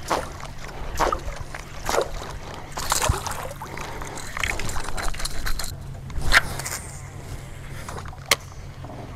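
Dojô propeller topwater lure being jerked across the river surface, splashing and churning about once a second in quick bursts, with a steady low hum underneath. A single sharp click comes near the end.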